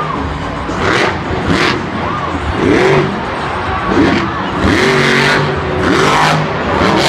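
Monster truck supercharged V8 engines revving hard in repeated surges, the pitch swinging up and down several times as the trucks accelerate and jump.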